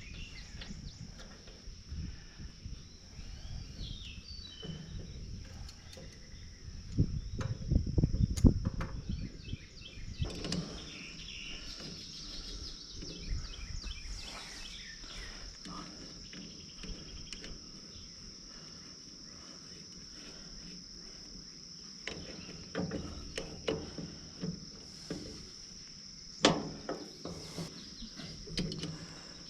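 A steady high insect chorus, like crickets, trilling throughout, with scattered knocks and clanks of hand work over it. There is a cluster of louder knocks about 7 to 9 seconds in and a sharp single knock near the end.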